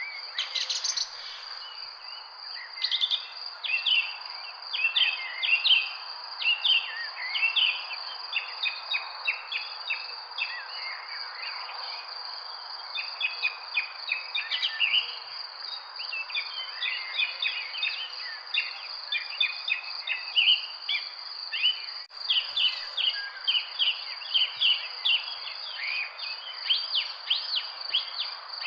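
Many birds chirping in short, quick calls, overlapping throughout, over a steady high-pitched insect trill and a soft background hiss.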